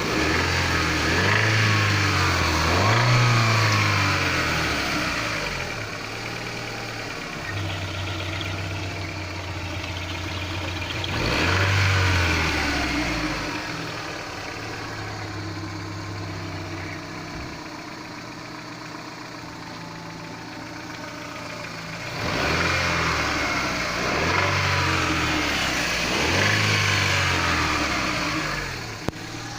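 Daewoo Nexia engine idling and revved in short blips, twice near the start, once in the middle and about three times near the end, with a knock that the owner is trying to identify.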